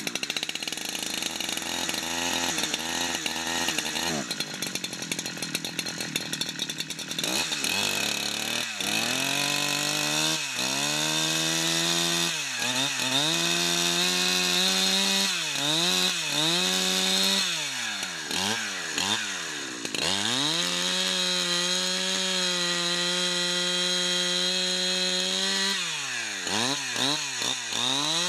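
Husqvarna 372XP two-stroke chainsaw, rebuilt with Chinese aftermarket parts, running on its first run and revving up and down again and again, with a few seconds held steady at high revs. The owner thinks it is running lean on the high-speed (H) screw and needs tuning.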